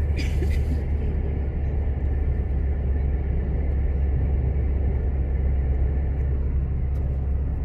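Steady low rumble of a car driving, heard from inside the cabin, with a brief rustle about half a second in.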